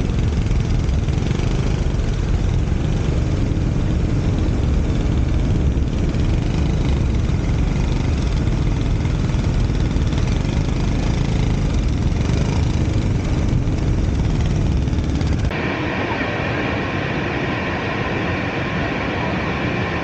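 WMoto RT3 250 cc maxi scooter on the move: its engine running under a heavy low rush of riding wind on the camera microphone. About three-quarters of the way through it cuts abruptly to the steady rush of a small waterfall.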